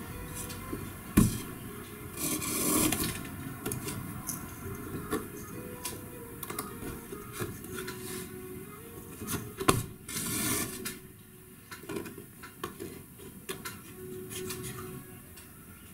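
Hand upholstery work on the wooden seat frame of an antique Voltaire armchair while its springs are being tied: scattered knocks and taps, with rubbing and scraping. The two sharpest knocks come about a second in and again near ten seconds.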